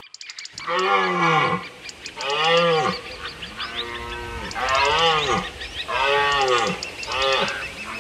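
A large animal calling over and over: about six short calls, each rising and then falling in pitch, with faint high chirps above them.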